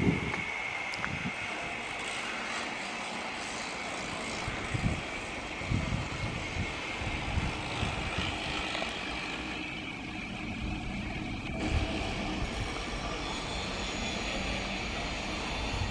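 A steady distant engine drone, with a few short low thumps.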